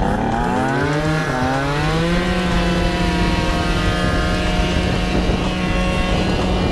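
Tuned two-stroke Yamaha Jog scooter engine at full throttle. The revs climb for about two seconds, then hold steady at one high pitch as the variator takes over.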